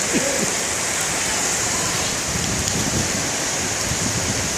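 Heavy downpour of rain, a steady hiss without a break.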